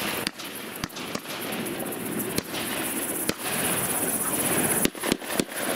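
Distant shotgun shots, about eight of them at irregular intervals with a quick run of three near the end: another party of duck hunters firing at a flock passing high overhead.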